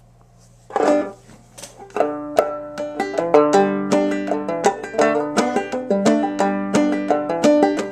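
A-scale banjo being picked: a chord rings out just under a second in, then from about two seconds a steady stream of quick, bright picked notes in a rolling pattern.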